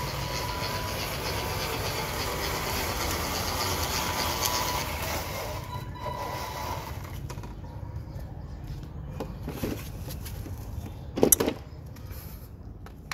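Homemade RC dump truck driving across concrete: a steady motor and gear whine with tyre rush, which stops about seven seconds in. A brief sharp clatter about eleven seconds in is the loudest sound.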